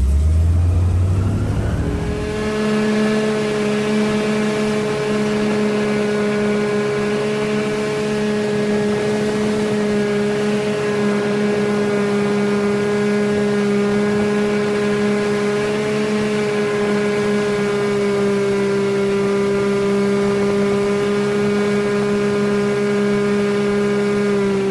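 Airboat's engine and propeller running fast, rising in pitch over the first two seconds and then holding a loud, steady drone.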